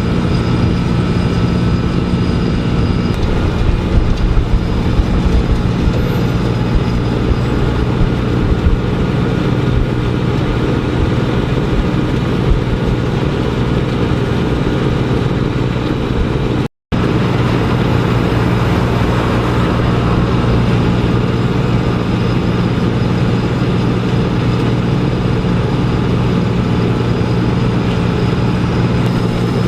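Heavy diesel machinery running steadily, most likely the Wirtgen W1200F cold milling machine at work, with a constant engine hum and rumble. The sound cuts out for a moment about seventeen seconds in, then carries on unchanged.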